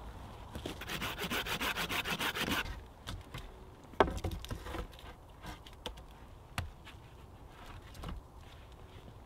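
A saw cutting through wood in quick, even rasping strokes for about two seconds. Then comes one sharp wooden knock, the loudest sound, and a few softer knocks as wooden poles are laid into a shelter frame.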